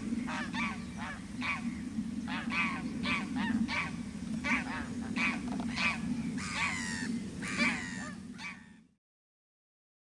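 Greylag geese honking: a steady string of short calls, about two a second, over a low rumble, cutting off abruptly near the end.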